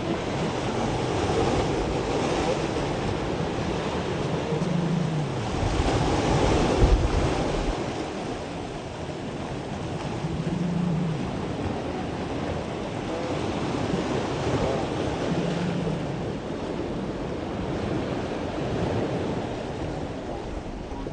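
Baltic Sea surf washing onto the shore in repeated swells, with wind buffeting the microphone, strongest about six to seven seconds in.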